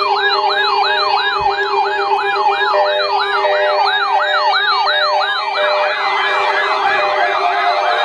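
Many NOAA weather alert radios sounding their alarms at once for a Required Weekly Test: overlapping siren-like warbling tones that rise and fall about two to three times a second, over a steady tone and interrupted beeping. A second warble joins about five and a half seconds in.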